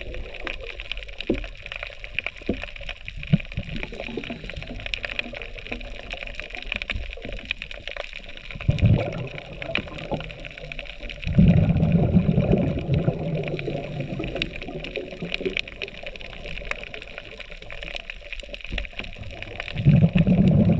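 Underwater sound: a constant fine crackle of clicks, with rushes of a scuba diver's exhaled bubbles about nine seconds in, a longer one around twelve seconds, and another near the end.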